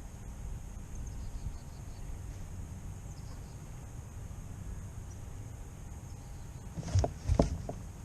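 Steady low wind rumble on the microphone, with a short cluster of sharp knocks from gear against the kayak about seven seconds in.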